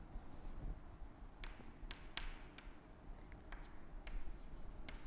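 Chalk writing on a chalkboard: faint, irregular taps and short scratches as each stroke is made.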